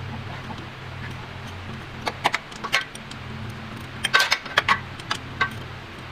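Metal hand tools and loose metal parts clinking and rattling in two short flurries of sharp clicks, over a steady low hum.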